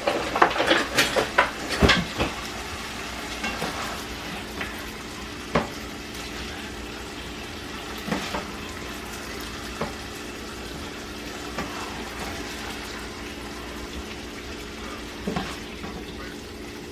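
Chicken chunks sizzling in oil and butter in a hot pan. A quick run of utensil clatter against the pan in the first two seconds, as the browned pieces are lifted out and the next batch goes in, then steady sizzling with a few single taps.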